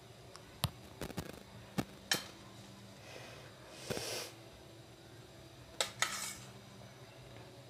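A metal spoon clinking on a steel plate and glass bowl as diced mango is scooped and dropped into a dessert: scattered light taps and clinks, with a short scrape about four seconds in.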